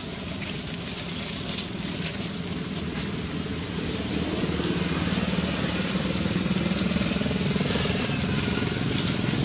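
A motor engine running steadily, getting louder from about halfway through, over a steady high hiss.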